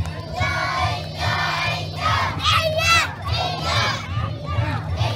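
Large crowd of float pullers shouting together in a rhythmic chant, about two shouts a second, as they haul a heavy Karatsu Kunchi festival float (hikiyama) around a sharp turn.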